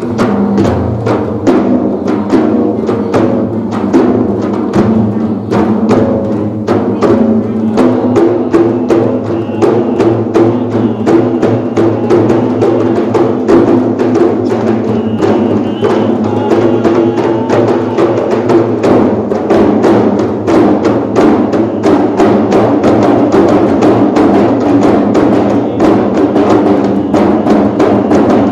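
An ensemble of large hand-struck frame drums (rebana) beating a steady, loud rhythm together, dense strokes over the ringing of the drumheads.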